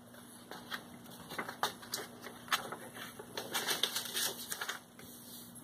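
A sheet of paper being folded and creased by hand on a tabletop: a run of crisp rustles and crackles as the folds are pressed flat, stopping shortly before the end.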